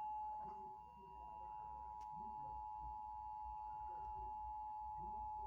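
Emergency Alert System attention signal: the steady two-tone 853 Hz and 960 Hz alarm tone, held unbroken, announcing an Illinois EAS test.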